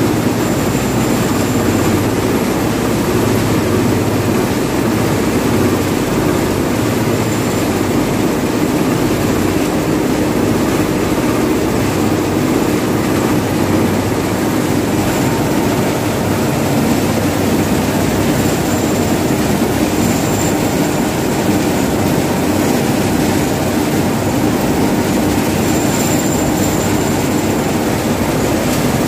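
Cotton processing machine running steadily: its rotating drum and electric motor give a loud, even mechanical drone with a low hum.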